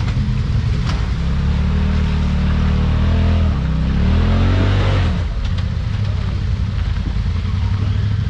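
Off-road vehicle engine revving under load. The revs build and waver, rise sharply, then drop about five seconds in to a lower steady run.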